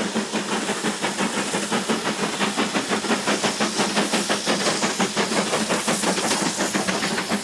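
Steam locomotive working hard, its exhaust beating rapidly and evenly, about six beats a second, over a steady hiss of steam.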